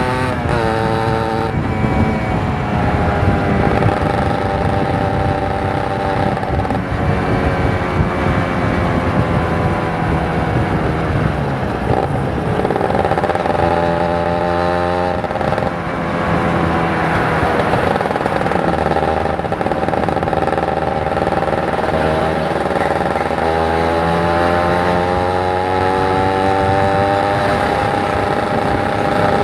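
Kawasaki Ninja 150 RR's two-stroke single-cylinder engine under way, revving up and down through the gears. The pitch drops sharply about twelve seconds in and again a few seconds later as the throttle closes, then climbs again near the end.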